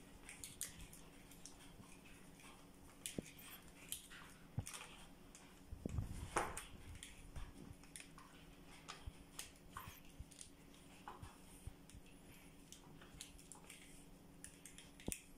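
Faint clicks and scrapes of an Allen key turning the screw of a rear fender's plastic clamp on a bicycle seatpost, with a louder burst of handling noise about six seconds in. A faint steady hum runs underneath.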